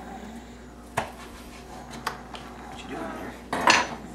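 A utensil clinking and scraping against a mixing bowl while guacamole is being mixed: two sharp clinks, then a louder scraping burst near the end.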